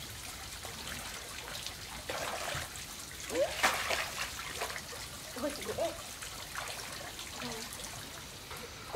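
Shallow pond water trickling and splashing as people wade in and reach into it with their hands, with the loudest splashes about three and a half seconds in.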